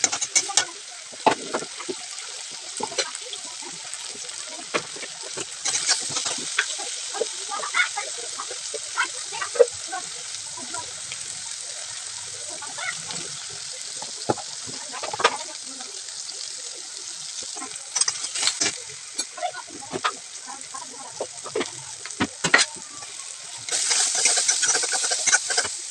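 Sliced onions and chopped tomatoes frying in oil in a kadai, sizzling steadily while a steel spoon stirs them, clicking and scraping against the pan. The sizzle grows louder about six seconds in and again near the end.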